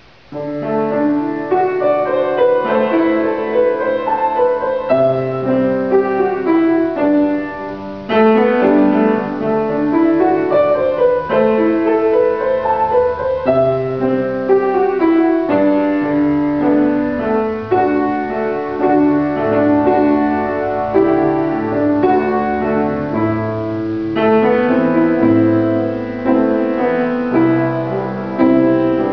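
Grand piano played solo: held chords and melody notes, starting about half a second in after near quiet.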